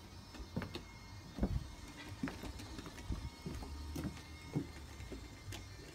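Battery-powered Brio toy train on a wooden track: faint, irregular light clicks and knocks of wood and plastic, about one or two a second, over a faint low rumble.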